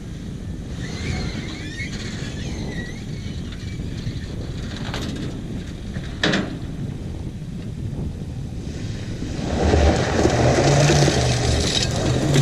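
Kia Sportage engine running at low speed as the SUV rolls backwards down a flatbed trailer's ramps onto gravel, with a single knock about six seconds in. From about nine seconds on it gets louder as the SUV pulls away across loose gravel, its tyres crunching.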